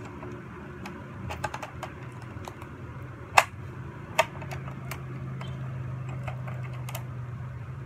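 Hard plastic pieces of a toy track clicking and knocking as they are handled and fitted together, with two sharper snaps about three and a half and four seconds in. A low steady hum starts soon after the second snap.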